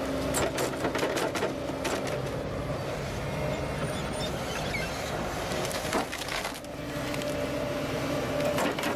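A machine's engine running steadily under a string of sharp cracks and crunches of wood being broken up.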